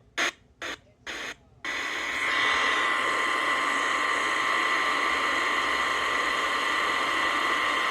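Kaito KA600 emergency radio being tuned: a few short bursts of sound, then steady static hiss from about a second and a half in, with faint steady tones in the hiss, as it picks up a weak weather-radio signal.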